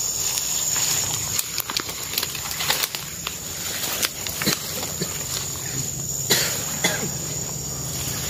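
Rustling and crackling of people moving through dense forest undergrowth: leaves brushing and twigs snapping underfoot in a string of short sharp cracks, the sharpest about six seconds in. A steady high insect drone, like crickets, runs underneath.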